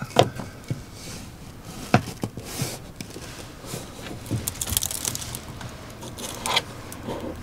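A thin plywood panel being pushed and worked into place against a wooden cabinet by hand: a few sharp knocks and taps with scraping and rustling between them.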